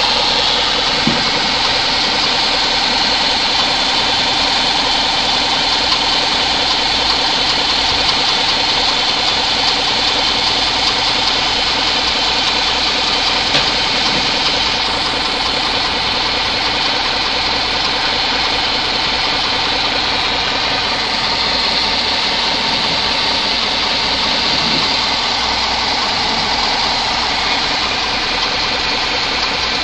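Subaru boxer engine running steadily with a fast, even knock. The knock comes from a worn belt idler pulley rather than the valves, the tensioner or the engine itself.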